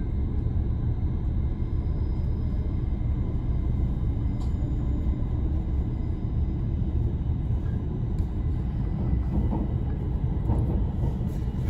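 A train running, with a steady low rumble.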